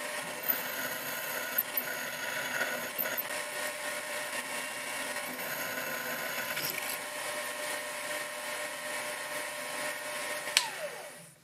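Proxxon FF 230 micro mill spindle running steadily while a 3 mm twist drill cuts holes in a steel die blank: a steady motor whine. Near the end the motor is switched off and its whine falls away.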